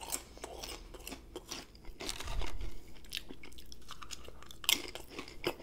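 Close-up crunching and chewing of regular potato chips, with crisp crunches every fraction of a second. The loudest crunch comes about three quarters of the way through.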